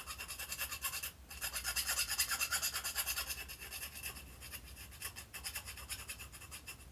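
Needle file rasping back and forth in quick short strokes, deburring the edges of a freshly milled square hole, with a brief pause about a second in.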